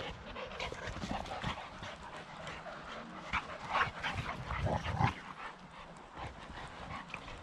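Two boxer dogs play-fighting: irregular short bursts of dog breathing and scuffling, heaviest from about three to five seconds in.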